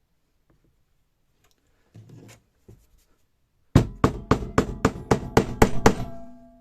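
A hammer striking metal in a quick run of about nine blows, roughly four a second, each with a short metallic ring that hangs on after the last blow. A brief scrape of handling comes before the blows.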